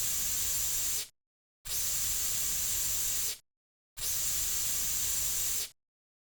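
Narrow-nozzle aerosol cockroach insecticide can spraying in bursts: a steady hiss that is already running and cuts off about a second in, then two more sprays of nearly two seconds each, each stopping abruptly.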